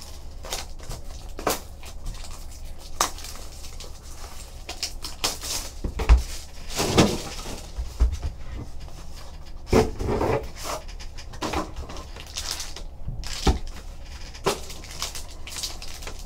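A trading card hobby box being unwrapped and opened by hand: plastic wrap crinkling and tearing, cardboard rustling and a few soft knocks, then a foil card pack handled.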